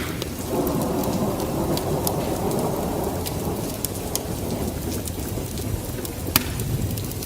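Steady rain with a low rumble of thunder that swells about half a second in and slowly eases over the next few seconds. Scattered sharp crackles sound over it.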